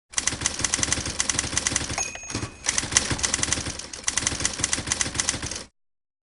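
Typewriter keys striking in rapid, steady typing. About two seconds in a short ring sounds and the typing pauses briefly, then carries on until it stops abruptly.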